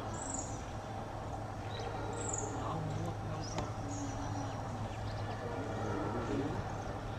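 Birds chirping and calling a few times, short high notes and quick falling calls, over a steady low hum.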